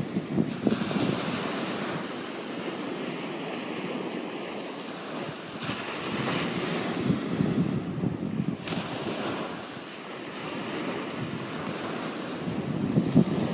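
Ocean surf breaking and washing up a sandy beach, the hiss swelling and fading several times, with wind buffeting the microphone underneath.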